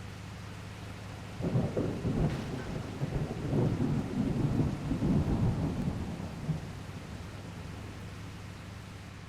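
Steady low drone of a water truck's engine, with a loud burst of irregular low rumbling and crackling from about a second and a half in until about six and a half seconds in.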